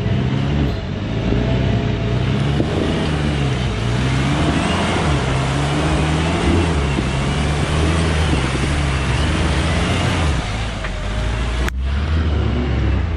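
Off-road 4x4 engine running hard under load, its pitch rising and falling as the throttle is worked. The sound cuts out for an instant near the end, then resumes.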